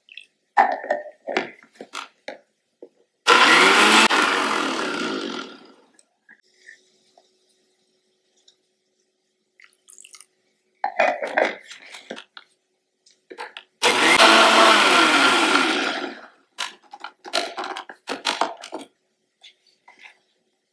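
Electric mixer grinder (mixie) running twice in short runs of about two to three seconds each, grinding whole spices, garlic, ginger and green chilli with water into a fine wet masala paste. Each run fades away as the motor stops. Short clicks of the plastic jar and lid being handled come in between.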